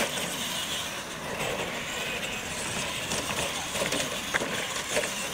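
Radio-controlled monster trucks racing: a steady mechanical running noise from their drivetrains and tyres on artificial turf. A few sharp knocks near the end as a truck comes down off a jump.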